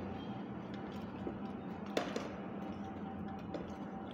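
Hands eating rice from steel pots: one sharp clink of metal about two seconds in and a few fainter ticks, over a steady low hum.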